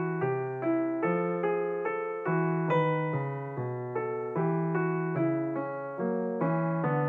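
Background piano music: a slow, gentle melody of struck notes about every half second, each dying away before the next.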